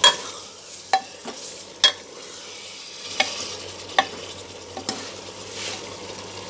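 Metal spatula stirring mutton curry in a metal pot, scraping and knocking against the pot about once a second, over a steady sizzle of the frying masala.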